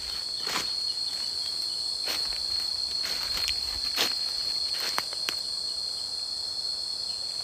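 A steady high-pitched drone of insects, with footsteps crackling on dry bamboo leaves and twigs snapping a few times at irregular moments.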